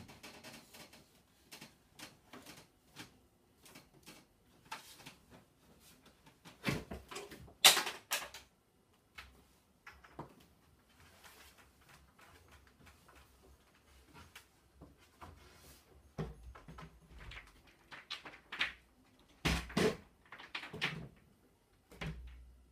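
Scattered knocks, thumps and creaks of a person climbing barefoot across furniture and a black metal loft bed frame, hands and feet gripping and pushing off. The loudest knock comes about eight seconds in, with a cluster of thumps near the end.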